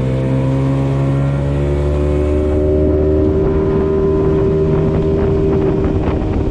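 Outboard motor pushing a small aluminium jon boat along at a steady cruising speed, its engine note holding an even pitch.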